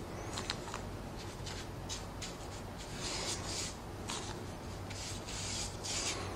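Chip brush scrubbing hot hide glue onto the bottom of a wooden drawer: a run of short, irregular brush strokes, sparse at first and longer and denser from about halfway.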